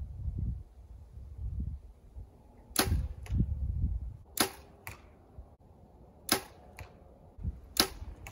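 Compound bow shots: four sharp releases a second or two apart, each followed about half a second later by a fainter knock of the arrow striking the target.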